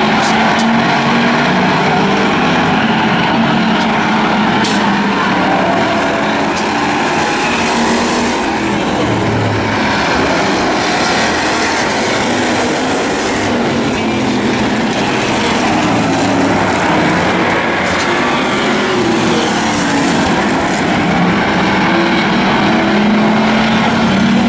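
Several demo race cars' engines running together around an oval track in a steady loud din.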